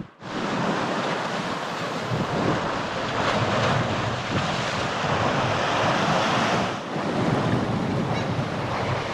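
Ocean waves washing onto the shore in a steady wash, easing briefly about seven seconds in, with wind buffeting the microphone.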